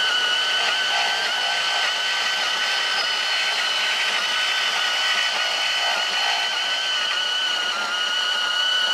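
Makita 18 V cordless portable bandsaw cutting through 2-inch schedule 40 steel pipe, its motor and blade giving a steady high whine under load.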